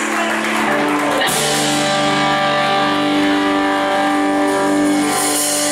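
Live band of acoustic and electric guitars, bass and drums holding out a long final chord, with a cymbal wash over it; the chord shifts once about a second in, then rings on.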